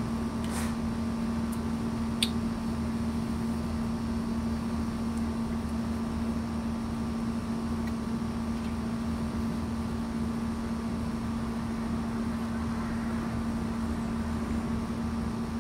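Steady hum of an outdoor air-conditioning condenser unit running. Two light clicks, about half a second in and about two seconds in, come from the crossbow being handled.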